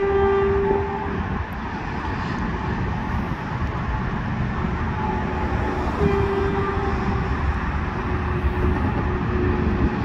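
Horn of an approaching Stadler FLIRT diesel multiple unit sounding for a grade crossing. One held blast cuts off about a second in, and further blasts follow from about five seconds in, the strongest starting around six seconds, over a steady low rumble.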